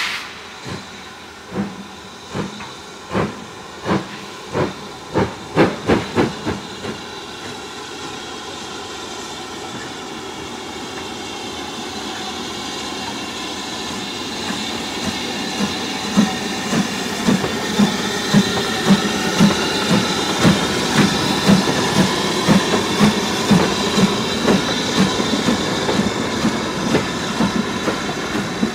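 BR Standard Class 4 2-6-4 steam tank engine pulling away with its train: a run of sharp exhaust beats that quicken quickly and stop about six seconds in. The sound then builds as the train draws nearer, with a regular beat about twice a second over the running noise of the engine and coaches.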